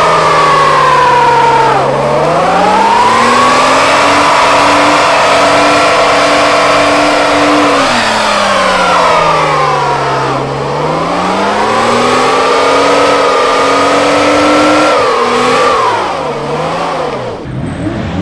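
SUV engine revving hard during a burnout: it climbs and holds at high revs for several seconds, sags, climbs and holds again, over the hiss of spinning tyres, then wavers and eases off near the end.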